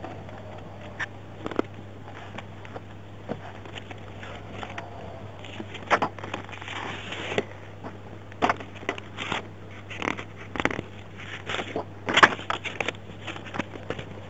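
Handling noise on a police officer's microphone: irregular rustles, clicks and knocks over a steady low hum. The knocks come more often in the second half, and the loudest is near the end.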